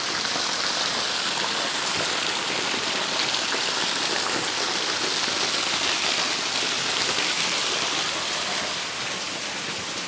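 Waterfall water pouring and splashing in a steady, even hiss, easing slightly near the end.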